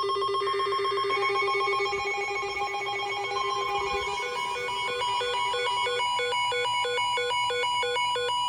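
Electronic emergency alert tones ahead of a tornado warning broadcast: several steady tones sound together, and about five seconds in a fast, evenly pulsing beep of several pitches joins them.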